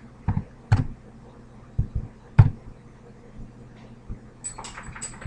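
Computer keyboard keys and mouse buttons clicking: a handful of separate sharp clicks, then a quick run of lighter clicks near the end.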